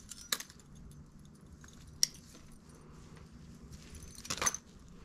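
Metal jewellery, a necklace with a gold-coloured pendant, clinking faintly as it is handled inside a plastic bag, with light rustling. A few sharp clicks stand out: one just after the start, one about two seconds in, and a short cluster near the end.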